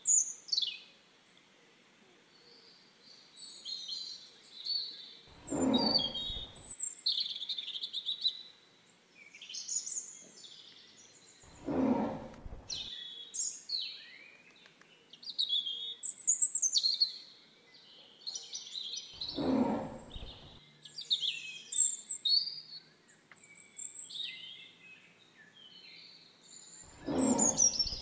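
Many songbirds chirping and singing in varied, overlapping calls. A short, deeper sound of about a second comes four times, roughly every seven seconds.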